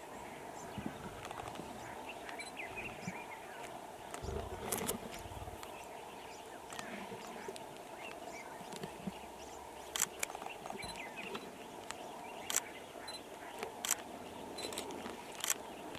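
Male lions feeding on a buffalo carcass: scattered sharp cracks and crunches as they chew and tear at flesh and bone, with a brief low rumble about four seconds in.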